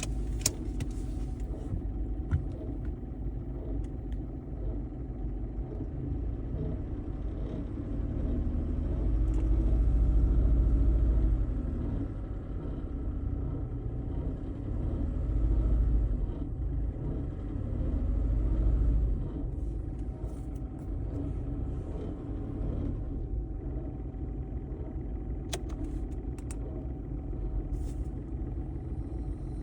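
A 2011 VW Polo 1.2 TDI three-cylinder diesel engine running with a low rumble, presented as a strange engine sound. The rumble swells louder three times, for a few seconds each, in the middle.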